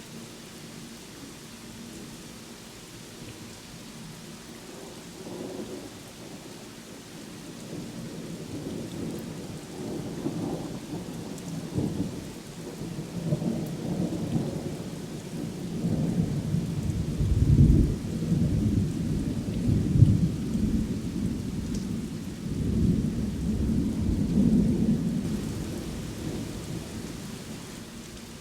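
Thunder rolling through steady rain: a long, deep rumble that builds about a third of the way in, is loudest just past the middle with a few sharper peaks, and fades away near the end.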